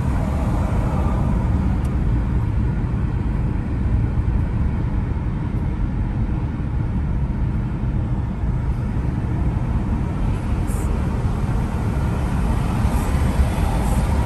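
Steady, unbroken low-pitched vehicle noise, the kind of rumble heard from a car on the move.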